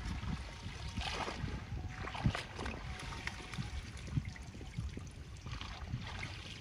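Bursts of leafy rustling as armfuls of water spinach vines are pulled and gathered by hand, several times, over a low rumble of wind on the microphone.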